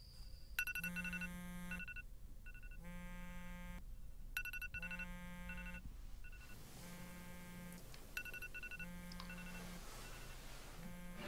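Phone ringtone repeating: a short electronic ringing pattern sounds again every second and a half or so, waking a sleeper.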